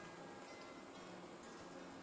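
Faint background music, very quiet and steady, with no clear eating sounds standing out.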